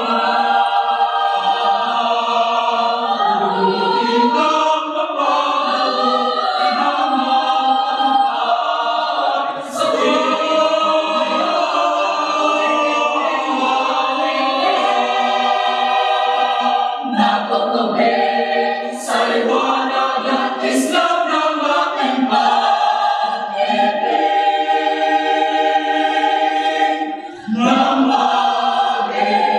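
Mixed-voice choir singing a cappella in full chords, with brief breaks between phrases.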